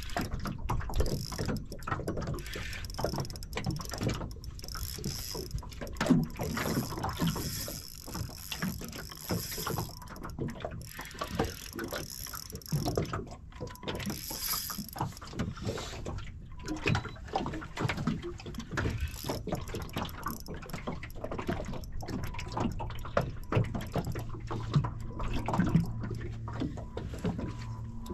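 Choppy water slapping against the hull of a small aluminium boat in wind, with irregular knocks and splashes. Near the end a low steady hum joins in.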